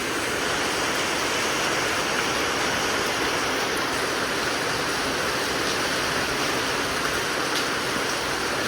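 Heavy rain and strong wind of a passing squall line, a steady rushing noise.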